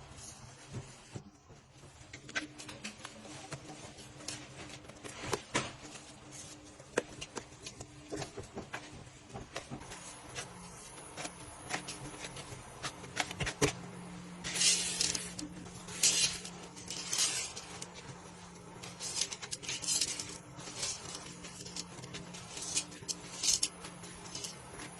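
Close-miked ASMR eating sounds: a string of small clicks and mouth noises, with several crisp, crunchy bursts in the second half.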